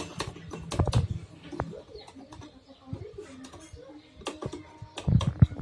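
A pigeon cooing over scattered sharp clicks and knocks from a vacuum cleaner's switch and parts being worked by hand after oiling.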